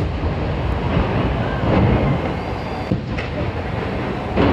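Large fireworks display: a dense, continuous rumble of explosions with a few sharper bangs standing out.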